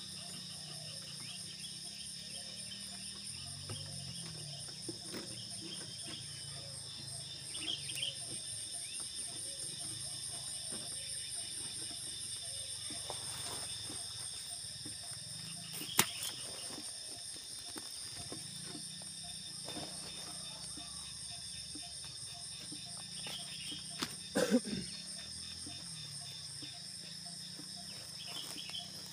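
A steady, high-pitched insect chorus, with a sharp click about halfway through and a couple of knocks later on.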